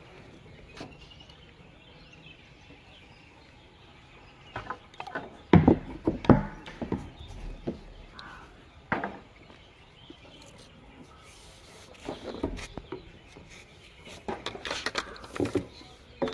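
Handling knocks, clicks and scrapes of PVC pipe fittings being cemented and pushed together on a plastic water tank. Two sharp knocks come about five and a half and six seconds in, with scattered smaller clicks and rubbing later.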